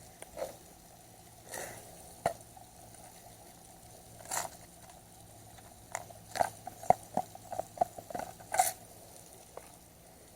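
Fishing tackle being handled as a small bobber is fitted onto the line: scattered light clicks and short rustles, with a quick run of small clicks in the second half.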